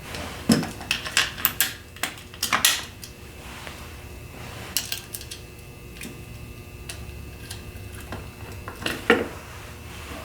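Metal hardware clinking and knocking in a few bursts: a transducer bracket and its stainless steel bolts and washers being handled and fitted against a jack plate. A cluster of clicks comes in the first three seconds, a few more about midway, and a last knock near the end.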